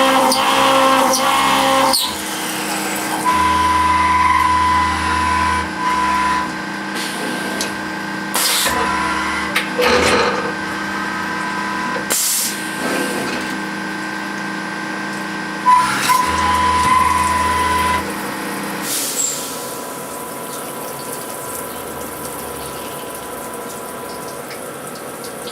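Skyfire VMC2 CNC milling machine running a program with flood coolant on: a steady motor hum with a high whine that starts and stops several times, over the hiss of a coolant pump and splashing coolant. About 19 seconds in the motor tones stop, and the coolant hiss goes on.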